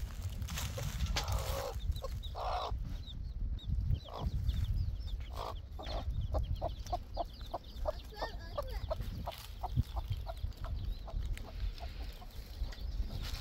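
Domestic hen clucking: two longer calls in the first few seconds, then a steady run of short clucks, about three a second.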